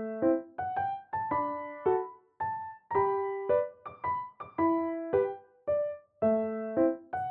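Background music: a gentle melody of single piano notes, each struck and fading, several per second.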